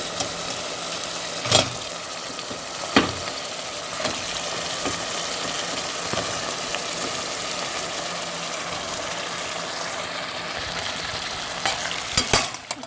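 Spiced masala sizzling in hot oil in a metal pot as cauliflower florets are added and stirred in, with a faint steady hum beneath. A metal spoon knocks against the pot twice in the first few seconds and several times near the end.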